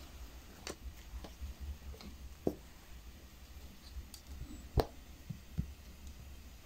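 Quiet handwork noises from slow hand stitching: a few scattered soft clicks and taps as the needle, thread and fabric layers are handled, the sharpest about three-quarters of the way in, over a low steady hum.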